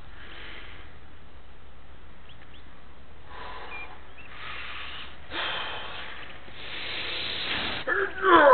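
A man's heavy breathing and straining as he bends a thick round wire nail by hand. The breaths come louder through the second half and end in a strained grunt that falls in pitch near the end.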